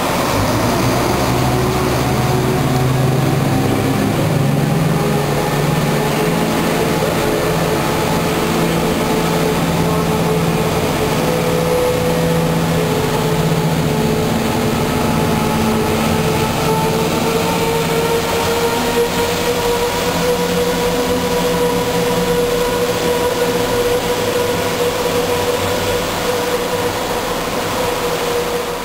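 Class 170 Turbostar diesel multiple unit pulling away under full power: its underfloor MTU six-cylinder diesel engines and Voith hydraulic transmissions give a loud, steady howl over a low engine rumble, the whine rising slowly in pitch as the train gathers speed.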